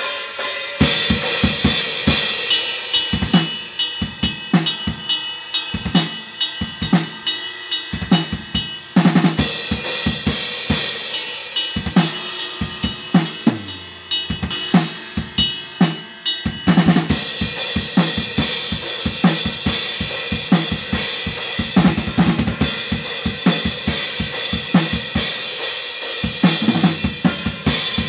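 Acoustic drum kit played hard along to a heavy band's song: fast bass-drum strokes, snare hits, hi-hat and crashing cymbals, with the recorded song underneath.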